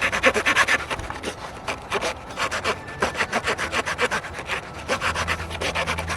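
Leatherman Signal multi-tool's small saw blade sawing through a piece of wood in quick, short back-and-forth rasping strokes.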